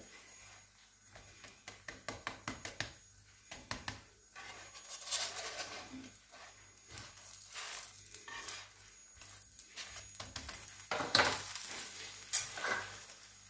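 Stuffed toast frying in a nonstick pan with a light sizzle, while a spatula taps and scrapes against the pan as it pushes the toast around. Short clicks come thick in the first few seconds, with a few louder knocks near the end.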